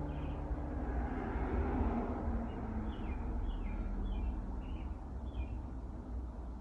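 Steady low background rumble, with a small bird chirping in short high notes several times from about two and a half seconds in.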